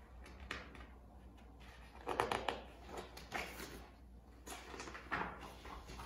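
Paper pages of a picture book rustling and flapping as they are leafed through, in several short bursts.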